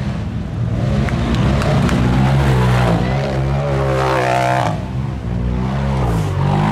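Side-by-side UTV engine racing, revving up and down as the throttle opens and shuts, with a long climbing rev a little past halfway that drops off sharply.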